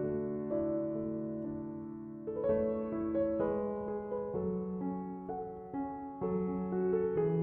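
Soft background music on piano: slow sustained chords that change every second or so.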